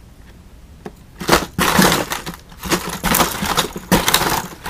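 Plastic blister packs of fishing lures clattering and crinkling as a hand rummages through a cardboard box. Quiet for about the first second, then a sharp clack and a run of rustling and clacking.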